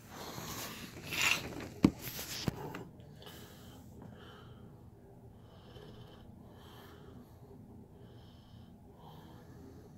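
Rustling as a phone camera is moved and repositioned, with two sharp knocks about two seconds in. Then a man breathes quietly, in short faint puffs about once a second.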